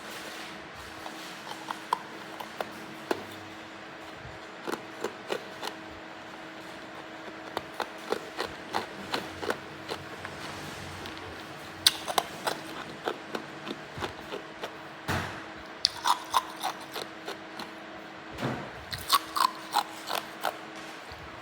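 Hard ice being bitten and chewed close to the microphone: irregular sharp cracks and crunches that come in clusters, with several louder snaps along the way.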